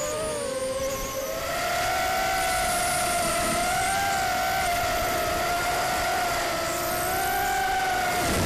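ImmersionRC Vortex racing quadcopter's four brushless motors and 5040 propellers whining in flight. The pitch sags briefly about a second in, then holds a steady whine with small wavers as the throttle changes.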